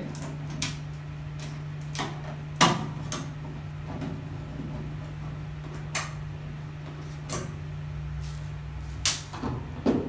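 A screwdriver and screws being worked on the plastic and metal top panel of a Whirlpool electric dryer: a scattered series of sharp clicks and knocks, the loudest about two and a half seconds in, over a steady low hum.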